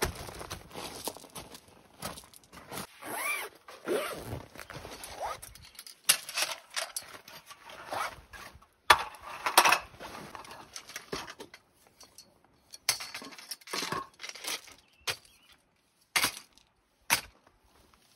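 Irregular clicks, knocks and rustling, with a few short squeaks about three to four seconds in.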